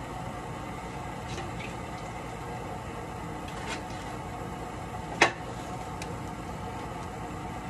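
A steady mechanical hum runs throughout. A single sharp knock comes about five seconds in, with a few faint clicks around it.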